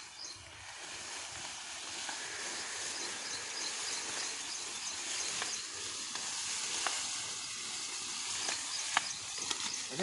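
Sugar cane leaves rustling and brushing close by as the ploughing team moves through the tall cane, with a few sharp clicks or snaps in the second half, the loudest about nine seconds in.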